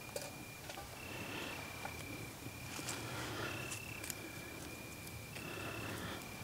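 Crickets trilling at night in high, steady phrases of about half a second that repeat throughout, with a few sharp clicks.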